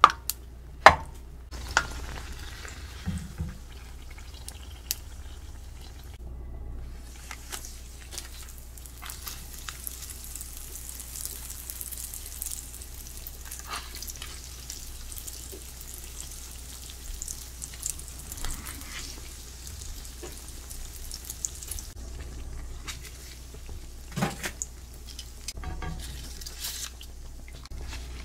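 Yeast doughnut dough frying in a pan of hot canola oil, a steady sizzling and bubbling hiss. A few light clicks of utensils against the pan, a metal skimmer near the start and chopsticks later, with a brief drop about six seconds in.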